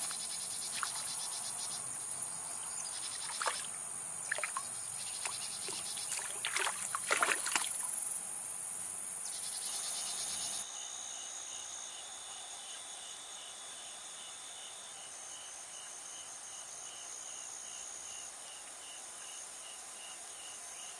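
Steady high insect chorus with a regular pulsing chirp, over which a fish bait dangled on a line pops and slaps the water surface in a handful of short splashes a few seconds in. About halfway through the sound changes abruptly to a slightly quieter insect chorus with an even, rhythmic chirp.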